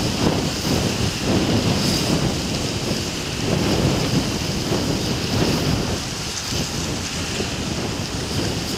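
Packed river ice grinding and crunching against the steel hull of a lake freighter as it pushes through: a steady, uneven low rumble with crackling on top.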